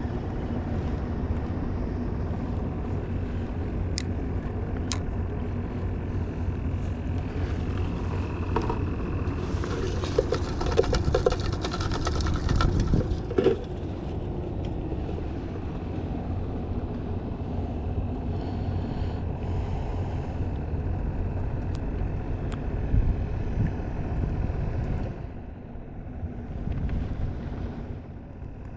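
Steady low rumble of a motorboat engine running on the water, swelling louder for a few seconds about ten seconds in, then easing off near the end.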